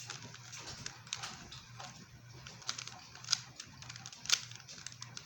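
Rubik's Cube being turned in the hands: a run of quick, irregular plastic clicks as its layers rotate, with two sharper clacks in the second half.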